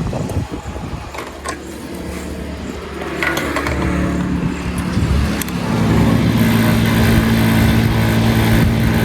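A motor running steadily with a low hum, growing louder about five to six seconds in.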